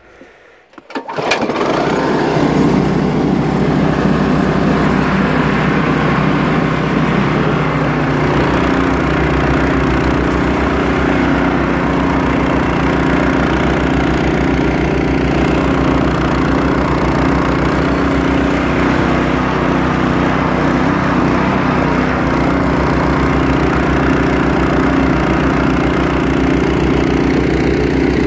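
Harbor Freight Predator 212cc single-cylinder engine on a 1976 Ariens 924 snowblower, running steadily under load while the auger chews through heavy wet snow and throws it. The sound comes in abruptly about a second in. The engine holds its speed and does not bog.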